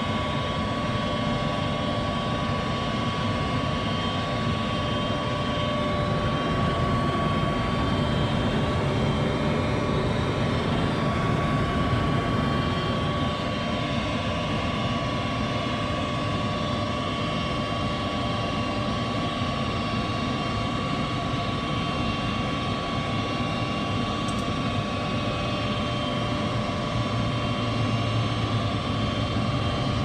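Goodman propane furnace running after its tripped rollout switches were reset: a steady fan-motor whine over a rush of moving air. A deeper hum grows in near the end.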